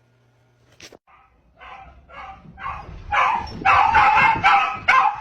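Dog barking repeatedly, about two to three barks a second, starting faintly and getting louder about three seconds in.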